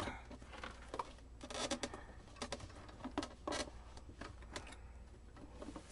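Faint, irregular clicks, knocks and scrapes of an RCA 66X1 radio's metal chassis being worked loose and shifted out of its cabinet, a rough go.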